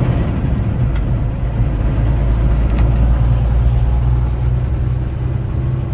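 Semi truck running down the road, heard from inside the cab: a steady low drone from the diesel engine and road noise, with a single sharp click about three seconds in.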